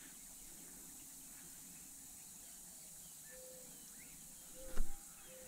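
Quiet outdoor pond ambience with a steady faint high insect hiss and a few short, faint calls. A single brief knock sounds near the end.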